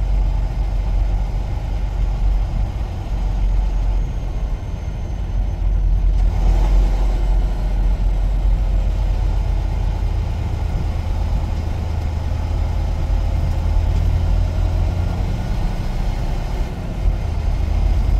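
Semi truck's diesel engine running with a steady low rumble, heard from inside the cab as the truck rolls slowly along.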